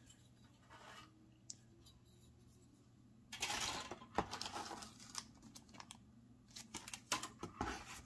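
A clear plastic bag of small kit parts and plastic sprues being handled: crinkling rustles and a few light clicks. They start about three seconds in, after a quiet stretch.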